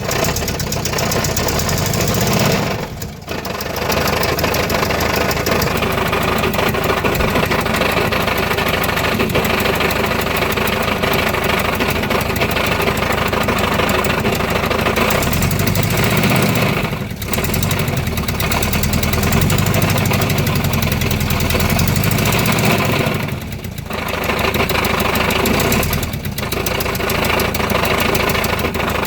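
Volkswagen T3 van engine running at idle with an abnormal noise linked to a leak. It runs steadily, with a few brief dips in level.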